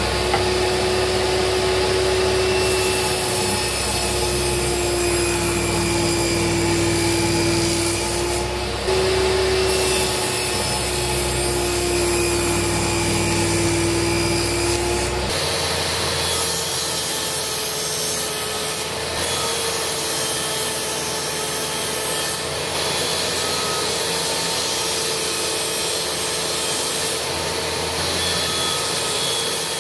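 Table saw running steadily while wood is fed through the blade, with a motor whine whose pitch sags slightly twice as the blade cuts. About halfway through the sound changes abruptly to a second table saw running with a higher-pitched whine.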